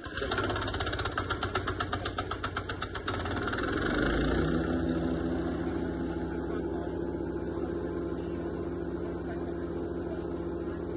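Small petrol engine of a Bluebird SHR 1000 wood chipper running just after starting on choke. For about three seconds it fires in rapid uneven pulses, then about four seconds in it picks up speed and settles into a steady, even drone. No branches are being chipped.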